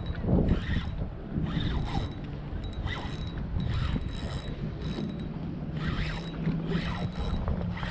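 Fishing reel working while a redfish is being fought: repeated mechanical clicking and whirring of the reel's gears and drag, about once a second, over wind rumble.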